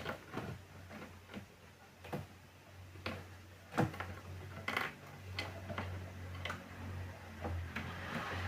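A dozen or so sharp clicks and light knocks at irregular intervals, over a low steady hum.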